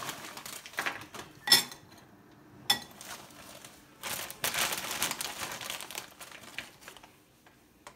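Snack-chip bags crinkling and rustling as hands reach into them, with two sharp ringing clinks on the ceramic bowl about a second and a half and nearly three seconds in.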